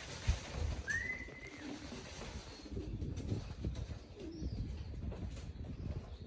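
Racing pigeons cooing, low wavering calls repeating throughout, with a short rising squeak about a second in.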